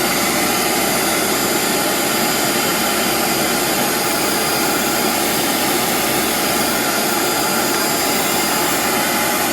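Bissell ProHeat 2X Revolution Pet Pro carpet cleaner's vacuum motor running at full speed, a loud, steady whine.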